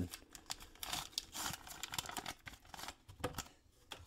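Wrapper of a baseball card pack being torn open and crinkled by hand, with sharp crackles and rustles that die away about three and a half seconds in.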